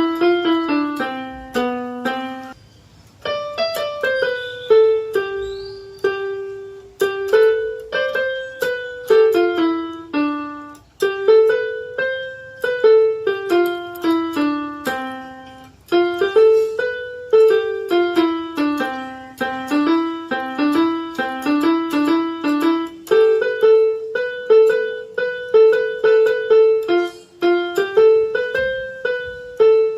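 Electronic keyboard playing a simple single-line melody, one note at a time at a steady moderate pace in the middle register, with a brief pause about three seconds in.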